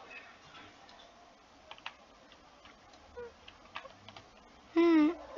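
Sparse, faint light clicks and taps, then a brief vocal sound from a person near the end.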